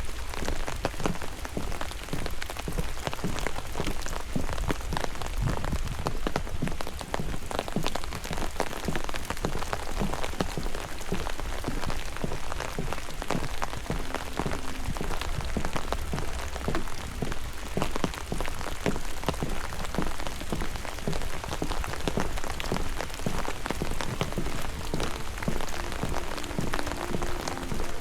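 Steady rain falling, with many close drops pattering. Faint music comes in near the end.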